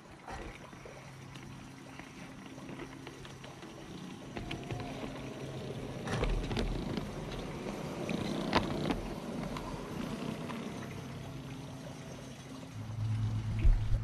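1:24 scale electric model tram running on 45 mm gauge garden track, its motor and gearbox whine and wheel clatter growing louder as it approaches and passes close by, with a sharp click at about eight and a half seconds. One of its gearboxes is noisy, traced to deteriorated lubricating grease. A louder low hum sets in near the end.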